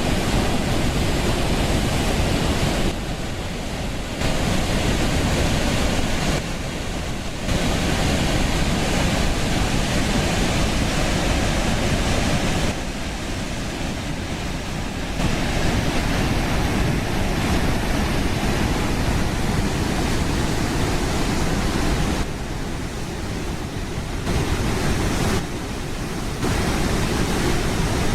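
Waterfall rushing: a steady, even noise of falling water. Its level and tone step abruptly up and down every few seconds.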